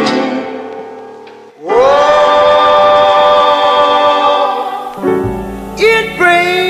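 Background music with singing. A held chord fades out, then a sustained sung chord swells in about two seconds in. Near the end a low bass and gliding vocal notes begin.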